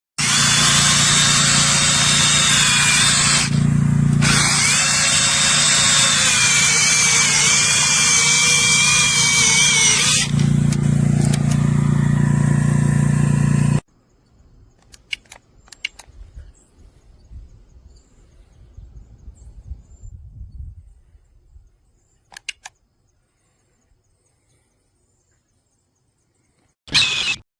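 TREXEEN cordless mini chainsaw's electric motor running flat out, its whine dipping in pitch and recovering as it cuts. It stops abruptly about 14 seconds in. A few faint clicks follow, and there is a brief burst of the saw just before the end.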